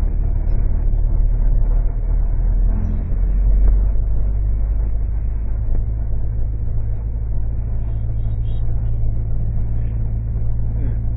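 Engine and road rumble of a moving vehicle heard from inside the cabin, a steady low hum whose pitch shifts about three and a half seconds in.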